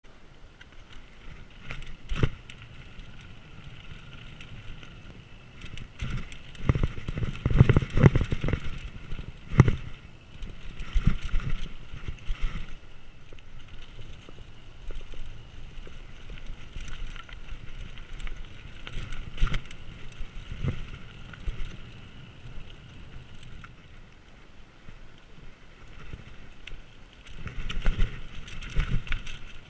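Mountain bike ridden over dirt singletrack: a steady rush of wind and tyre noise, with the bike rattling and knocking over bumps and roots. The knocks are heaviest about seven to ten seconds in and again near the end.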